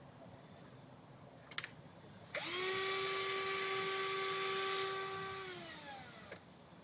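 A small electric drill: a short click, then the motor whines at a steady high pitch for about three seconds before slowing and falling in pitch to a stop.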